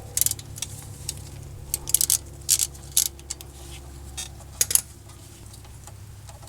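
Irregular metallic clinks and clicks of hand tools working the 12 mm bolt that holds the brake line and ABS sensor bracket to the front strut, with a steady low hum underneath.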